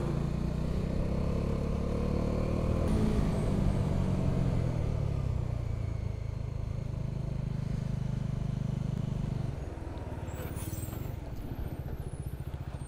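Motorcycle engine running while riding, heard from the rider's own bike, its note easing off and falling; about three quarters of the way through it drops to a quieter, evenly pulsing low-speed run as the bike slows almost to a stop.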